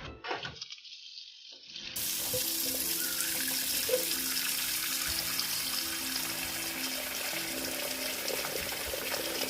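Water running steadily, like a tap into a sink, starting loud about two seconds in, with background music of held notes under it.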